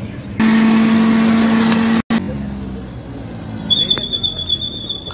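Road traffic noise. A loud steady tone with a rushing noise lasts about a second and a half and cuts off suddenly, and a thin high-pitched whine with light ticks comes in near the end.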